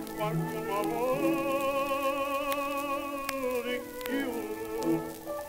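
Sicilian folk song: a melody note held for about three seconds with a wide vibrato over lower accompanying notes, then the melody moves on.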